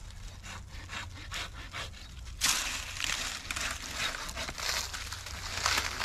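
Hand saw cutting through a wooden branch with repeated rasping strokes, which grow louder and denser about two and a half seconds in.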